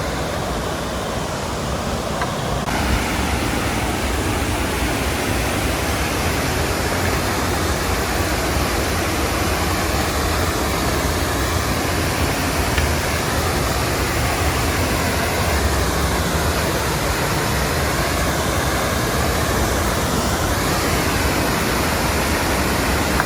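Abrams Falls waterfall rushing: a steady, even hiss of falling water that grows fuller and brighter about three seconds in.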